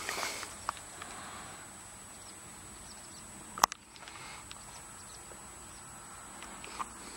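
Quiet outdoor ambience with a thin steady high tone and scattered short chirps. One sharp click comes about three and a half seconds in.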